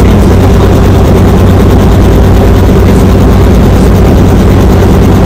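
Light helicopter's engine and rotor noise heard from inside the cabin: loud and steady, with a low hum under a broad rushing din.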